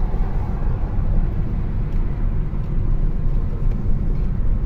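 Steady low rumble of a car driving on the road, heard from inside the cabin.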